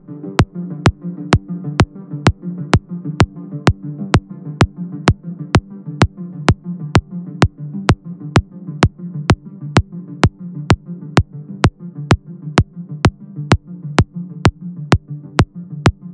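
Electro house music: a steady, hard beat of sharp hits about twice a second over sustained low synth chords.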